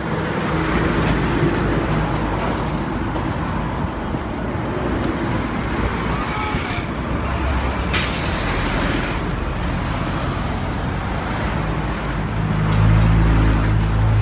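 Steady road traffic noise. A sharp click comes about eight seconds in, and near the end a motor vehicle's engine drone grows louder and becomes the loudest sound.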